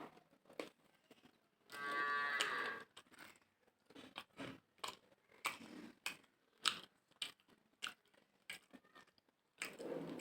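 Close-up sounds of eating by hand: wet chewing, lip smacks and short clicks, repeating irregularly. About 2 seconds in comes one loud pitched, moan-like vocal sound lasting about a second.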